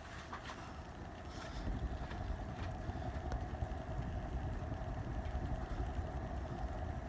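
Antique Peerless Electric ceiling fan running on low speed: a steady, quiet motor hum with a faint whine, growing a little over the first couple of seconds and then holding even.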